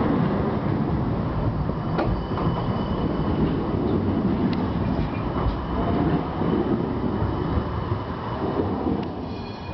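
A city tram running past at close range, a steady rumble of wheels on street track with faint thin high-pitched squeal tones over it and a sharp click about two seconds in.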